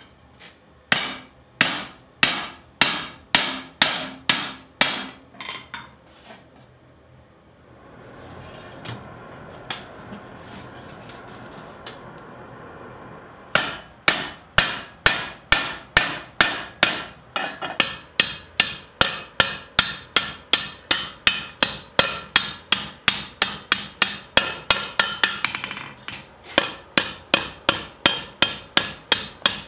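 Hand hammer striking the red-hot rim of a steel disc on the anvil, raising the edge of a forged skillet: sharp ringing blows at a little under two a second. After a pause a few seconds in there is a steady rushing noise, then from about halfway the blows resume faster, about two and a half a second.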